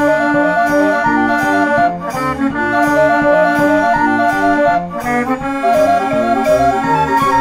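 Background music: a melody of short notes over held chords and a steady bass beat.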